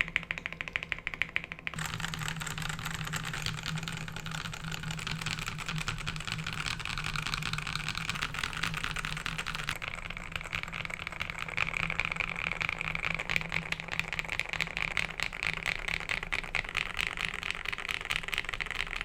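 RK84 mechanical keyboard with lubed Akko Matcha Green switches, lubed stabilizers, stock keycaps and foam and tape mods, being typed on fast. Separate keystrokes for the first couple of seconds run into a dense, continuous clatter, which sounds a little duller from about halfway.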